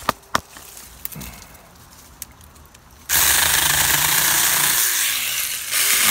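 Saker 4-inch 20 V cordless mini electric chainsaw switching on about halfway through and running loud and steady with a low hum as its chain cuts through a small sapling near the ground, dipping briefly near the end. Before it, a couple of sharp knocks and light rustling in the brush.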